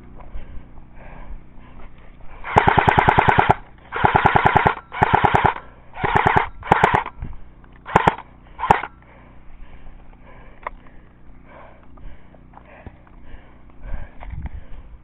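Electric airsoft gun firing on full auto: about five bursts of rapid, evenly spaced shots, then two single shots.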